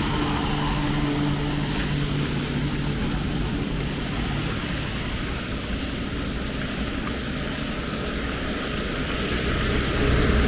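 Steady hiss of falling rain with the low hum of a passing engine that fades away in the first few seconds, and another low engine rumble building near the end.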